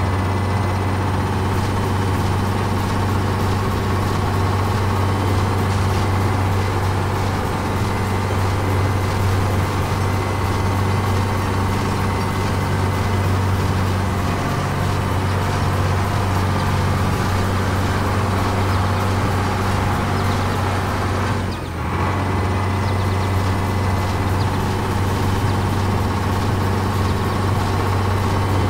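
Tractor engine running steadily at a constant low drone, with one brief dip about three-quarters of the way through.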